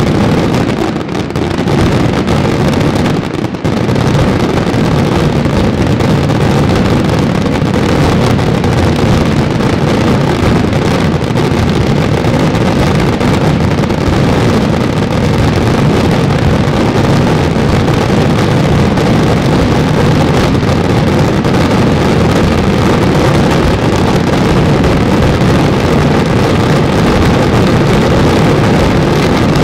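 Dense barrage of daytime fireworks, with crackling stars and coloured smoke shells going off so rapidly that the reports merge into one continuous rumbling crackle. There are a couple of brief lulls in the first few seconds before it becomes unbroken.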